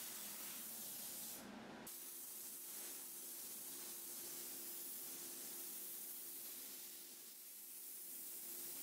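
Soda blaster nozzle spraying baking soda on compressed air against a wooden nightstand panel to strip its finish: a steady hiss that changes abruptly about two seconds in, with a faint steady hum under it after that.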